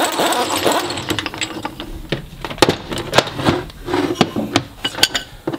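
Irregular sharp metal clicks and clinks from a screw-type bearing puller being worked on a Subaru R180 differential carrier to pull off a carrier bearing, with a denser rattle in the first second.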